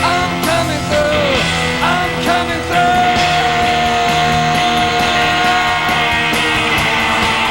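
Live worship band playing rock-style music with electric guitar, with a long held note from about three seconds in.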